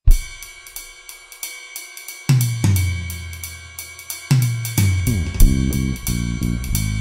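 Live rock band opening a song: the drum kit starts with a loud hit and a steady cymbal beat, long low notes come in about two seconds in and again about four seconds in, and from about five seconds in the full band plays a busy, driving low riff.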